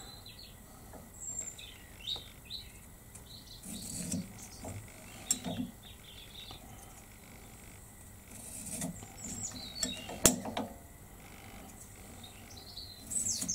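Quiet handling of a pencil and small square against a wooden blank in a lathe chuck: soft knocks and scratches, with one sharp click about ten seconds in. Faint short high chirps are scattered throughout.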